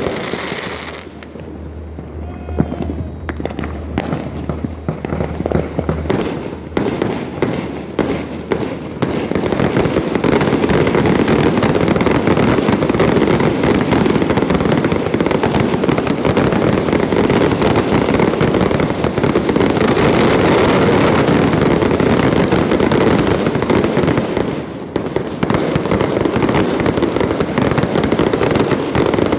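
Fireworks going off in a dense barrage: scattered bangs and pops at first, building about ten seconds in to a continuous run of crackling explosions that eases briefly near the end before more bangs follow.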